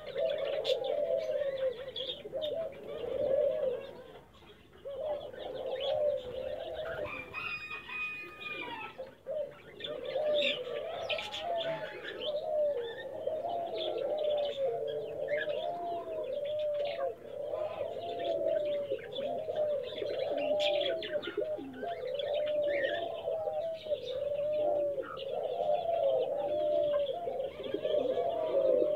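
Domestic pigeons cooing over and over, many coos overlapping in a steady run, with a short lull about four seconds in.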